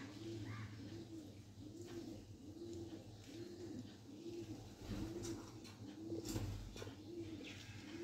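Pigeon cooing, a low soft coo repeated steadily about once a second, with a few faint sharp clicks in the second half.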